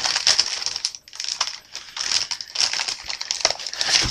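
Rustling and crinkling of plastic bags and paper as the contents of a plastic model kit are handled, in uneven bursts with brief pauses.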